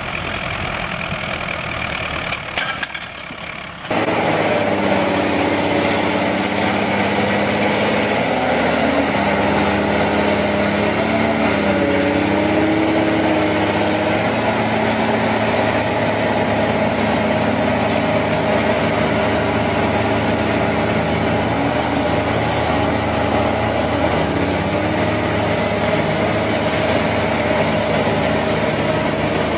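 Tractor engines running as a bogged-down tractor is towed out of mud. After a cut about four seconds in, a Case IH Quadtrac tracked tractor's engine runs hard under load, stuck in deep mud with a loaded trailer. A high whine over it falls away and climbs back twice.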